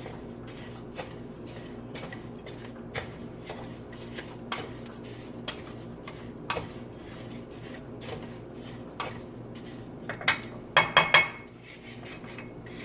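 Utensil stirring frying rice in a pot, with scattered light clicks and scrapes. About ten seconds in comes a quick run of loud, ringing metallic clinks against the pot.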